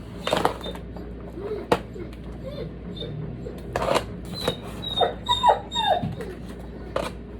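A spoon clinking and scraping in a pan as pasta salad is scooped, with several short high whining cries that fall in pitch about five to six seconds in.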